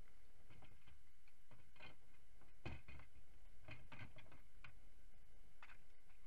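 Irregular light clicks and knocks, about a dozen, as a plastic kayak seat and its straps are handled and lifted out of a plastic kayak's cockpit, over a low steady rumble.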